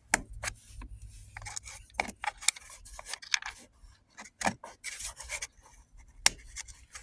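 Hands working on plastic interior trim and small parts: scattered clicks, taps and scraping, with one sharp click about six seconds in.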